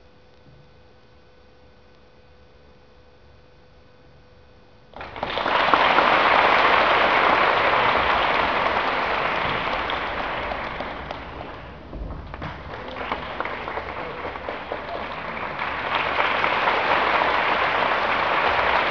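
Faint steady hum, then an audience starts applauding about five seconds in. The clapping thins out briefly around the middle and then picks up again.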